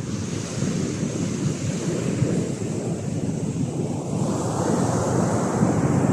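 Sea surf washing onto a beach in a continuous rush, with a wave building and breaking louder from about four seconds in. Wind buffets the microphone underneath.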